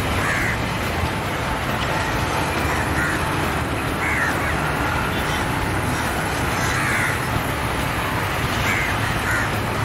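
Crows cawing about half a dozen times over the steady rumble of a passenger train rolling away along the track.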